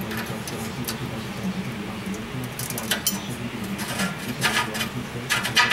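Light metallic clinks and rattles as a socket and long extension are handled and worked off an oxygen sensor that has just been broken loose on the exhaust pipe, with a steady low hum in the background.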